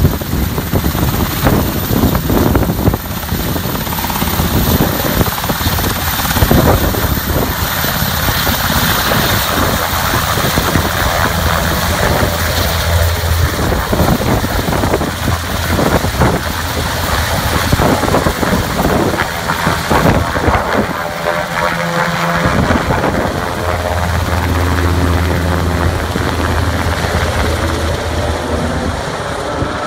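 Bristow AgustaWestland AW189 search-and-rescue helicopter lifting off and climbing away overhead, its main rotor beating rapidly over the turbine engines' running sound.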